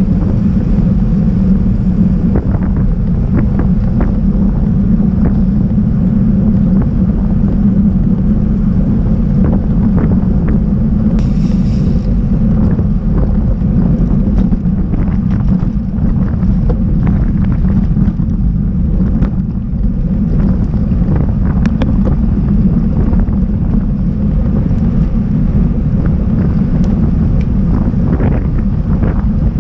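Steady, loud wind buffeting on the microphone of a camera on a moving road bike, mixed with the rumble of the tyres on the road. Occasional faint ticks and knocks from road bumps.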